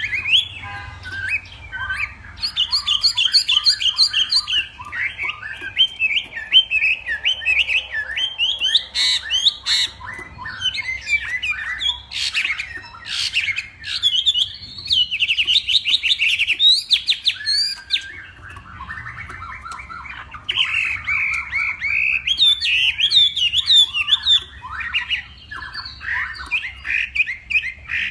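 Hwamei (Chinese melodious laughingthrush) singing a long, loud, varied song of fast repeated whistled phrases, the competitive 'fighting' song that hwamei keepers train for. The song eases off briefly about two thirds of the way through, then picks up again.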